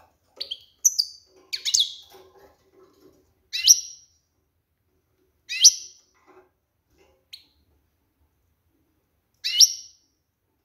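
Female European goldfinch giving short, sharp calls that sweep down in pitch: a quick run of several in the first two seconds, then single calls about every two seconds. These are the calls of a hen in breeding condition, used to stir males into song.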